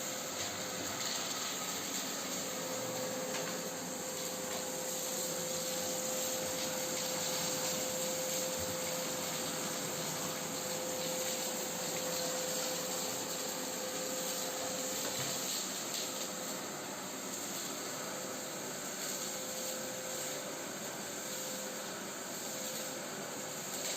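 Shop vacuum running steadily, its airflow pulled through a home-made bucket cyclone separator while it sucks up ash and garage debris, with a steady whine under the rushing air.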